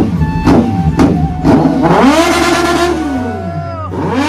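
Kawasaki Z900 inline-four with a full exhaust system revving: the pitch climbs about halfway in, holds, drops near the end and climbs again. Under the start there is a music track with a kick drum about twice a second.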